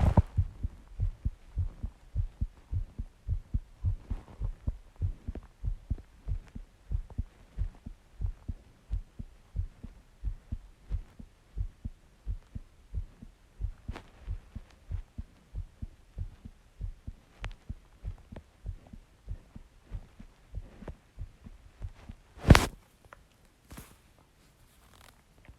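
A person's heartbeat picked up close to the chest: steady, evenly spaced low thumps. Near the end the beating stops after one loud sharp knock, with a fainter one just after.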